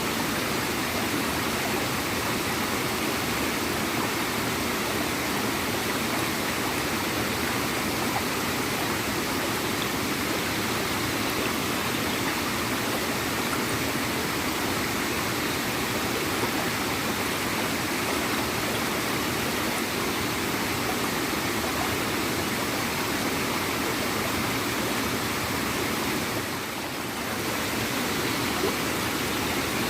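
Small waterfall running steadily into a stream, gurgling and splashing water with a brief slight dip about 27 seconds in.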